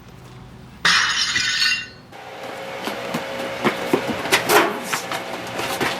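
Glass breaking: a sudden crash about a second in that lasts about a second, followed by a run of clinks and rattles that grows louder.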